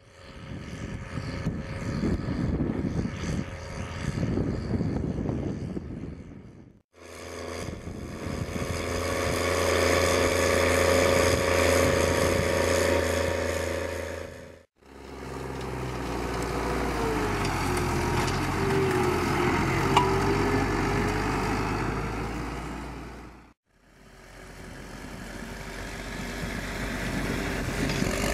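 New Holland T7070 tractor's six-cylinder diesel engine running steadily under load while pulling a plough through the soil. It is heard in four separate stretches, each fading in and out, cut apart by brief silences.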